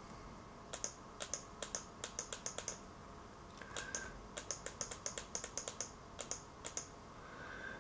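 Computer mouse left button clicked over and over, several clicks a second, in three quick bunches with short pauses between: repeated clone-tool clicks in photo-editing software.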